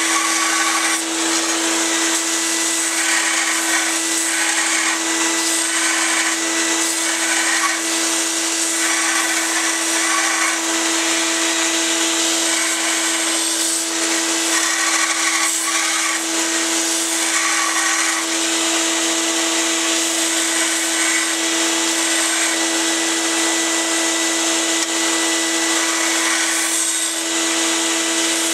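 Belt sander running with a steady motor hum while a steel knife blank is ground against the moving belt. The grinding hiss swells and fades in repeated passes as the blade is pressed on and eased off.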